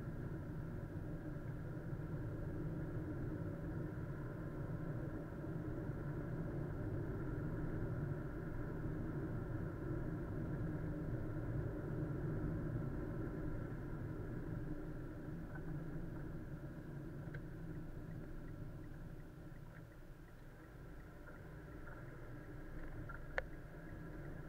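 Car driving, its engine and road noise a steady low hum picked up by a dashcam microphone. The hum dips for a few seconds about twenty seconds in, and there is one sharp click near the end.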